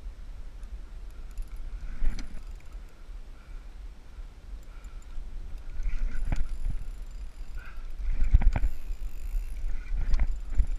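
Wind rumbling on the microphone, swelling in gusts, with several sharp knocks from the rod and reel being handled during the fight.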